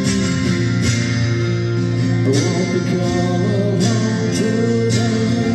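Live rock band playing through a club PA: amplified acoustic guitar over drums, with held notes.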